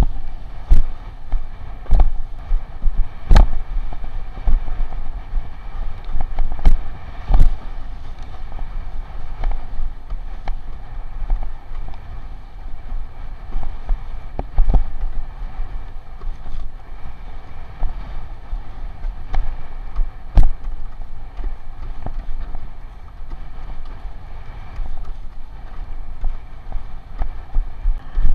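Wind buffeting the microphone of a camera mounted on a windsurf rig, with the rush of water as the board planes. Sharp knocks come now and then, several in the first eight seconds and one later on, as the board slaps over the chop.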